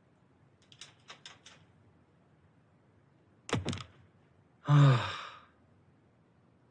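A man sighing twice: a short falling groan-like exhale about halfway through, then a louder, long breathy sigh a second later. A few faint light clicks about a second in.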